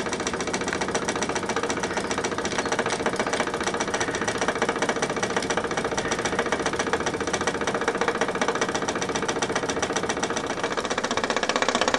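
Märklin vertical toy steam engine running smoothly on live steam, puffing in a rapid, even beat that holds steady throughout.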